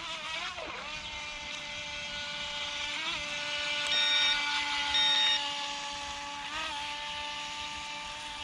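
Small electric RC boat's motor whining steadily at an even pitch, with a few brief blips up in pitch. Two short high beeps sound about four and five seconds in.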